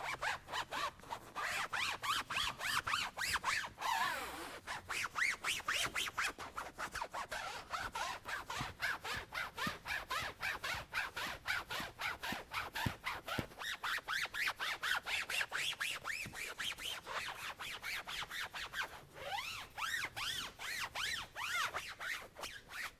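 Foam applicator pad scrubbing black-top dye gel into a porous convertible soft top: a steady scratchy rubbing in quick back-and-forth strokes, about three a second.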